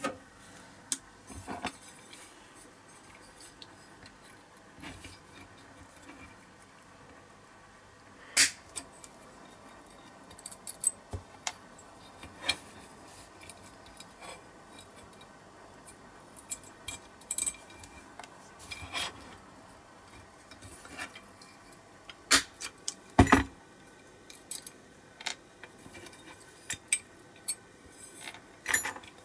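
Irregular sharp metallic clicks and clinks: side cutters biting and prying the rusted axles and small wheels off a diecast Matchbox trailer, with the freed wheel sets clinking down onto the mat. Two louder snaps stand out, about a third of the way in and near the end.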